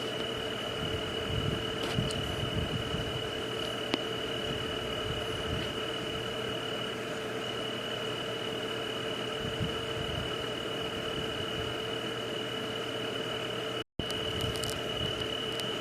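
Steady night nature ambience: an even hiss with a constant high drone like insects and a lower steady hum, a few faint ticks, and a brief cut to silence near the end.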